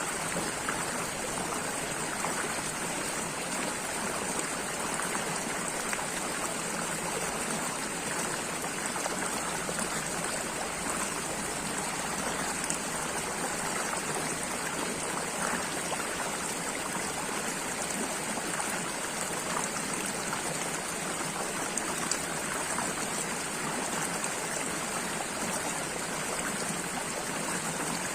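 Running water flowing steadily, like a stream, with a continuous rushing hiss and fine splashes throughout.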